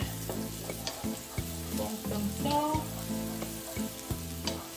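Background music: held notes that change every half second or so over a steady low bass line, with a light crackling hiss underneath.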